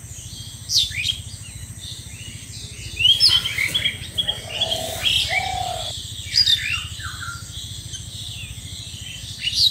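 Wild birds chirping in short, quick calls that come every second or two, over a steady low background rumble.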